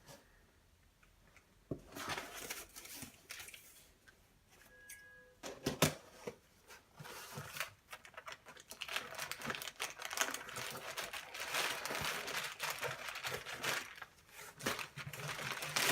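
Packaging of a replacement laptop screen being handled and opened: irregular crinkling and rustling of wrapping, with clicks and taps. It starts after a near-quiet second or two and becomes busier in the second half.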